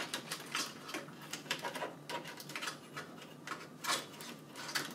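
Irregular light clicks and rustles of hands handling fan cables and plastic connectors inside a PC case, several a second, with a sharper click about four seconds in.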